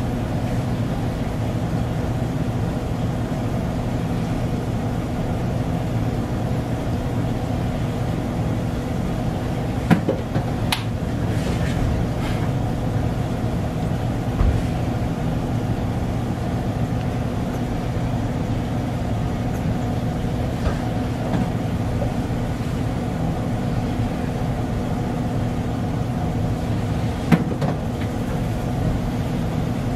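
Steady low mechanical hum, like a fan or motor, with a few short clicks and taps about ten seconds in, again a little later, and near the end.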